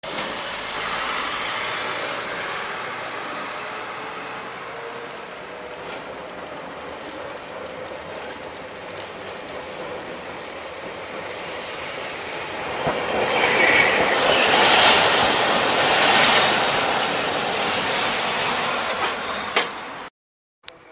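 Hiroshima Electric Railway 3700-series tram approaching along street track and drawing up close by. Its running noise grows to its loudest about two thirds through, with a brief wheel squeal, then cuts off suddenly near the end.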